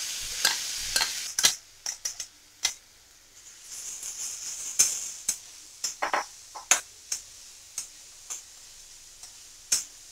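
Mashed paneer and chopped capsicum-onion stuffing sizzling as it goes into hot oil in a kadhai, then stirred with a spatula that knocks and scrapes against the pan in sharp clicks. The sizzle is strongest at the start and swells again about four seconds in.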